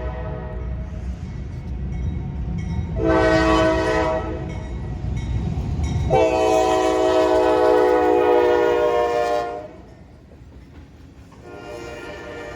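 Locomotive's Nathan K5HL five-chime air horn sounding the grade-crossing signal as the train approaches: a short blast about three seconds in, a long blast of about three and a half seconds, and another blast starting near the end. A low diesel rumble runs under the first part.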